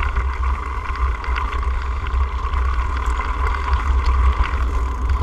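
Wind buffeting the microphone of a bike-mounted camera as a mountain bike rides over a rocky dirt trail, with a deep rumble and scattered ticks and rattles from the bike jolting over stones.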